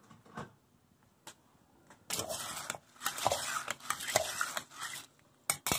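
Lentils and water being stirred in a crock pot insert: a few light clicks, then about three seconds of gritty, sloshing scraping starting about two seconds in.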